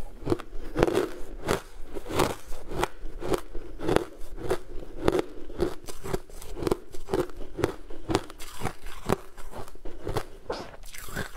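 Crushed ice being chewed, crunching between the teeth in a steady run of about two crunches a second.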